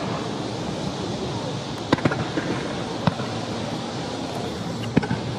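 Fireworks going off at a display: sharp bangs in a quick pair about two seconds in, a single one about three seconds in, and another pair near five seconds, over a steady background noise.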